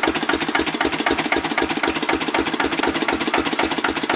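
Single-cylinder Lister CS stationary diesel engine running steadily without load. It makes an even, rapid, rhythmic clatter.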